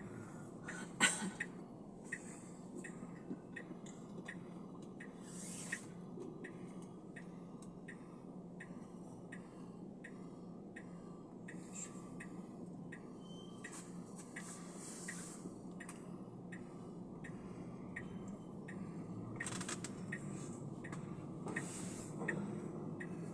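Car's indicator ticking at about two clicks a second over the low hum of the car's cabin, with one sharper click about a second in.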